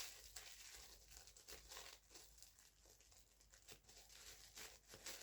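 Faint crinkling and rustling of plastic toy packaging being handled, in short scattered bits, close to silence.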